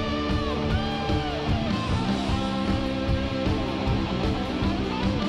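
Background music led by guitar, with held notes that bend up and down in pitch.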